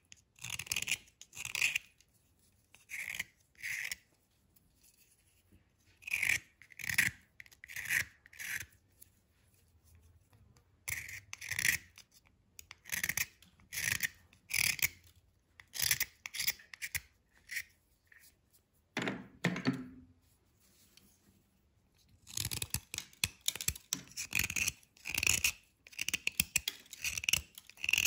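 Knife blade scraping a powdery white bar in short, dry rasping strokes, shaving off dust and flakes. The strokes come in small groups with pauses between them, then turn quicker and almost continuous near the end; there is a single duller knock about two-thirds through.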